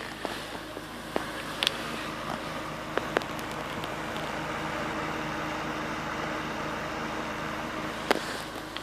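Eberth 3000 W petrol generator's four-stroke engine running steadily, with a few sharp clicks.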